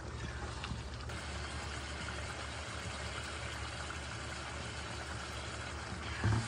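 Chicken karahi gravy bubbling steadily at a simmer in a stainless steel wok, over a steady low hum, with a brief low knock near the end.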